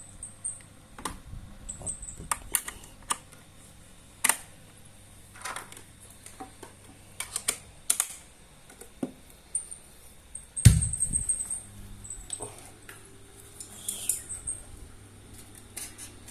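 Irregular clicks and taps, like keys being pressed, as the NUX MG-30 multi-effects unit is handled. One heavy thump about ten and a half seconds in.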